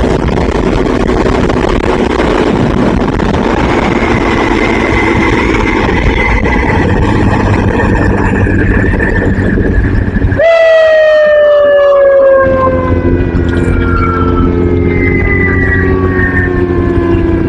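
Vehicle running with steady engine and road noise. About ten seconds in, a siren starts abruptly and slowly winds down in pitch, several tones sounding together.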